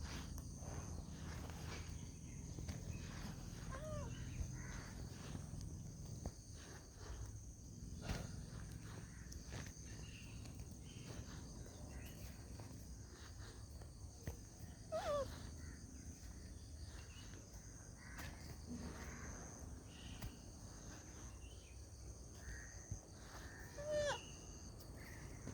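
Steady high insect chirring over a low rumble, with three short falling calls: a few seconds in, about midway, and near the end.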